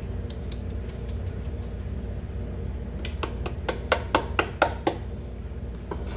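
Small metal sardine tins clinking and tapping against each other as loose flour is tipped from one floured tin into the next: a quick run of sharp metallic taps about three seconds in, over a steady low hum.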